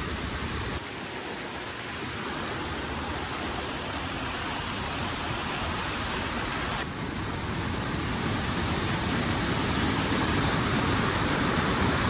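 White water of a rocky stream below a waterfall rushing over boulders: a steady, dense rush with no pitch, its tone shifting abruptly about a second in and again about seven seconds in, and growing a little louder toward the end.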